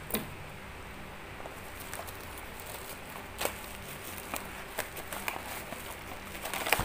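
Scissors snipping and handling the plastic wrapping of a parcel: a few separate sharp clicks and crinkles, the loudest about halfway through, over a faint steady background hum.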